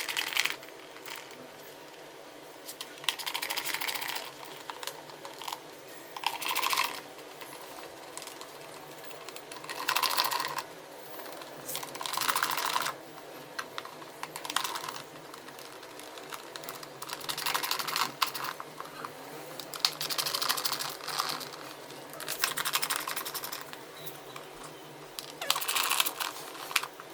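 Ratchet wrench with a Torx bit clicking in quick runs while undoing the Torx bolts of a car's air filter box. It comes in about ten separate bursts of a second or so each, with short pauses between them.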